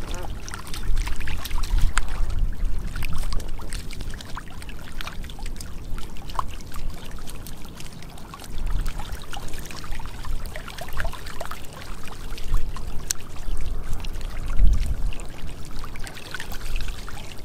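Catfish thrashing in shallow muddy water, a continual irregular splashing and sloshing with many small sharp slaps.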